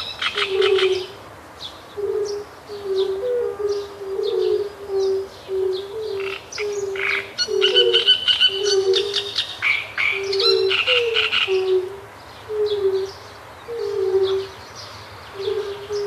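A chorus of fire-bellied toads calling with short, soft, even-pitched notes, about two a second, overlapping at slightly different pitches. Over it come loud bursts of great reed warbler song, busiest in the middle.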